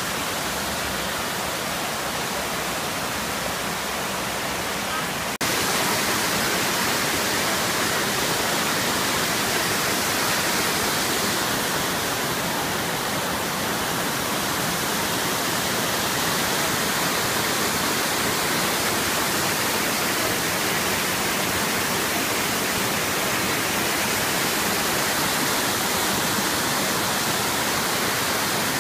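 Water of a tiered waterfall rushing steadily over rock ledges, a continuous even rush that steps a little louder about five seconds in.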